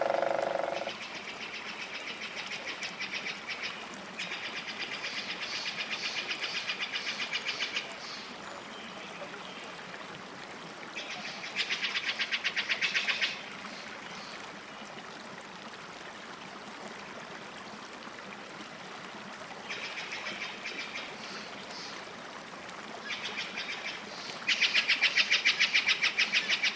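Forest wildlife calling: high, rapid pulsing trills in repeated bursts of one to four seconds with pauses between them, over a faint steady hiss. A lower, tonal call sounds in the first second.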